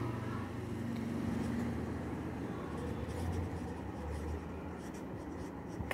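Marker pen writing on a sheet of paper: faint, scratchy strokes over a steady low hum.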